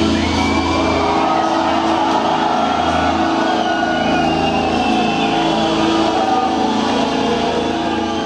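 An industrial metal band playing live through a club PA at the end of a song. Loud held chords and synth tones ring on without a steady beat, and the low end thins out about a second in.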